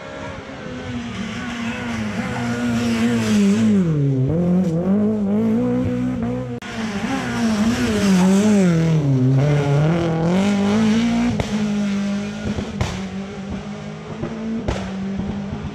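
Rally car engine at high revs, its pitch dropping sharply as it slows about four seconds in and again around nine seconds, then climbing back as it accelerates away. A few sharp cracks come near the end.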